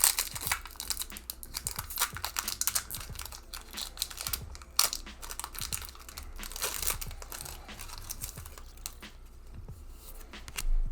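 Foil wrapper of a Pokémon Fusion Strike booster pack being torn open and crinkled, with dense crackling for the first few seconds and another burst about seven seconds in, then quieter.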